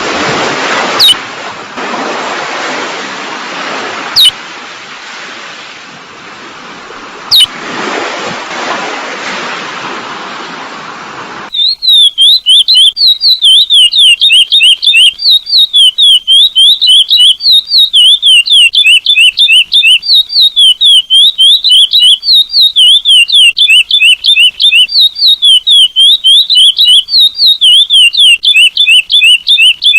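Ocean waves washing in and out, crossed by three short, sharp descending chirps. About eleven seconds in the waves cut off suddenly and a chestnut-bellied seed-finch (curió) song starts: a loud, unbroken string of quick descending whistled notes, about three or four a second, in the 'selo prata' song type used to teach captive birds.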